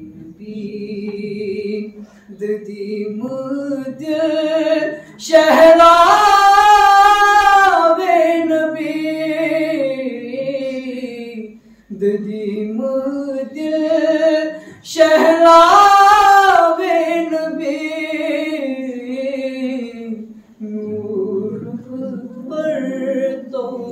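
A man singing a naat unaccompanied into a microphone, in long, wavering held notes. Twice, about five and fifteen seconds in, a phrase climbs high and loud before easing back down.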